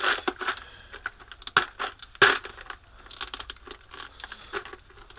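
Tape being pulled off a clear plastic organiser case, in scratchy rips, with sharp plastic clicks and the small aluminium blind rivets inside rattling as the case is handled. The loudest clicks come about one and a half and two seconds in, and a burst of ripping follows about three seconds in.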